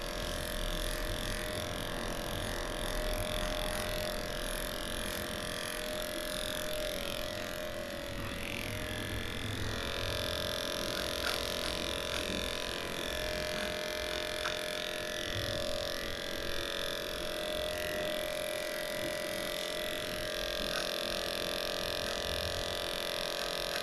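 Handheld electric dog-grooming clipper running with a steady hum as its blade shaves through a long, matted coat.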